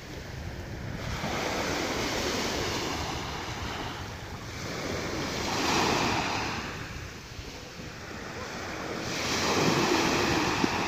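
Small waves breaking and washing up a gravelly beach, the surf swelling and fading three times about four seconds apart, with wind buffeting the microphone.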